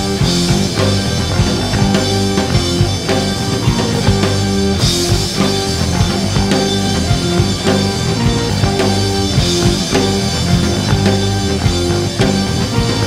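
Rock band playing an instrumental stretch between verses: a drum kit keeping a steady beat with occasional cymbal crashes, under bass guitar and electric guitar.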